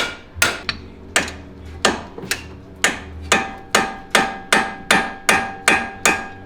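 Hammer blows on steel suspension parts, about two strikes a second with a short metallic ring after each, knocking a stuck front strut out of the car's suspension.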